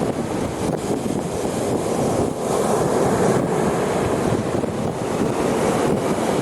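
Sea waves washing onto the shore, a steady rushing surf that swells and eases, with wind buffeting the microphone.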